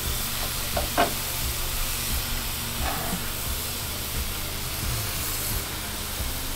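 Venison backstrap sizzling as it fries in a pan: a steady, even hiss, with a steady low hum beneath it.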